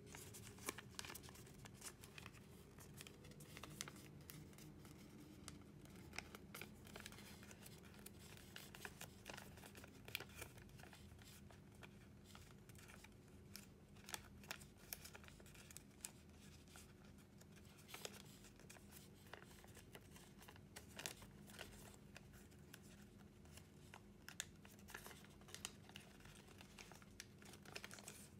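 A sheet of origami paper being folded and creased by hand: faint papery crinkling with many short, sharp crackles scattered throughout. A faint steady low hum lies underneath.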